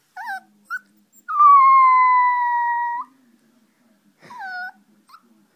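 An 11-week-old Maltese puppy whining: two short high whimpers, then one long steady high whine lasting almost two seconds, and a falling whimper about four seconds in. This is a young puppy's crying on its first day away from its mother.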